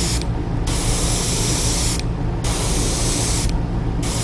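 Airbrush spraying paint onto a crankbait in a steady hiss, which cuts out briefly three times as the trigger is let off, over a steady low hum.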